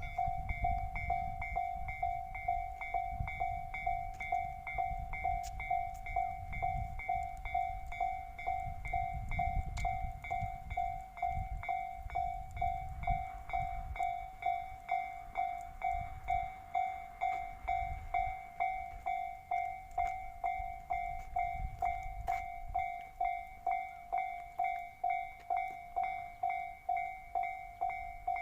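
Japanese level crossing's electronic warning bell ringing steadily, about two strikes a second, while a train rumbles past on the Tobu line; the rumble dies away a few seconds before the end and the bell keeps ringing.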